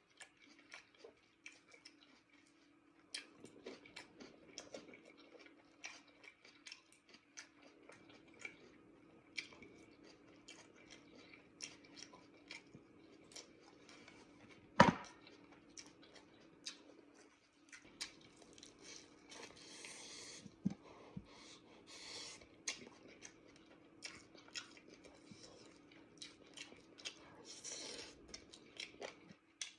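Close-up sounds of a person eating a meal of rice, chicken wings and salad: chewing and many small clicks, with one sharp knock about halfway through that is the loudest sound. A faint steady hum runs underneath.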